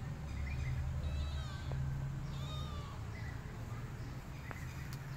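A kitten meowing twice, short high calls that rise and fall, about a second apart, over a steady low hum.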